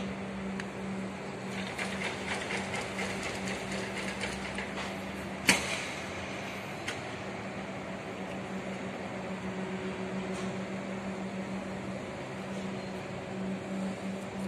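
Construction-site background with a steady low machinery hum, light ticking for a few seconds, and one sharp knock about five and a half seconds in.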